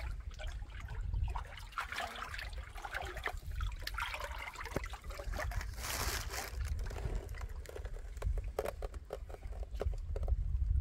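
Shallow river water lapping and trickling at the reedy shore. Near the end, a hand splashes as it scoops water up from the shallows.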